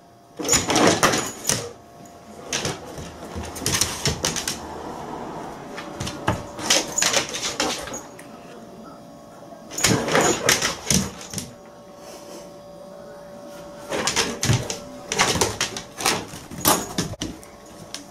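Bursts of clicking and knocking on a wooden floor as a Bernese mountain dog moves about on its claws and a toddler pushes a floor wiper mop, coming in several clusters with quieter gaps between.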